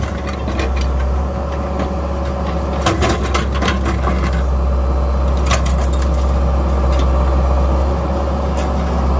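Excavator diesel engine running steadily under hydraulic load, with metal clanks and crunches from the grapple tearing into old combine parts, in a cluster about three seconds in and single knocks later.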